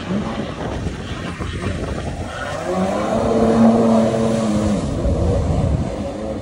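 Stand-up jet ski's two-stroke engine running at speed, its note climbing about two and a half seconds in, holding, then dropping away near the end, over a steady wash of wind and water noise.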